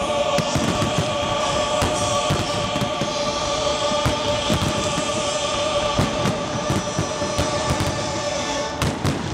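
Choral music holding a long sustained chord, overlaid with the repeated sharp bangs and crackle of aerial firework shells bursting; the chord ends near the end.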